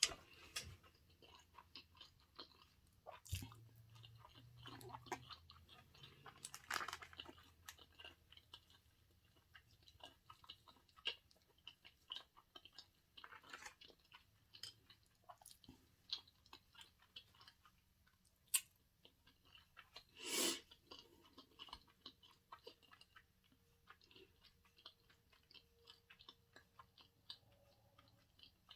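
Close-miked chewing of sushi, with many soft wet clicks and smacks of the mouth, and one louder burst about twenty seconds in.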